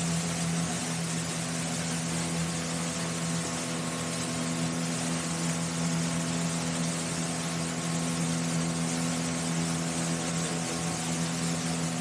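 A small passenger boat's motor running at a steady cruising speed, an unchanging hum, with water rushing in the churned wake and wind over the hull.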